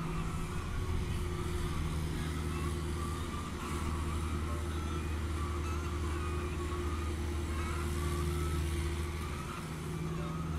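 CAT 305.5E2 mini excavator's diesel engine running steadily while the machine digs and swings a bucket of dirt. The engine note is rougher for the first few seconds, then evens out, and eases briefly near the end.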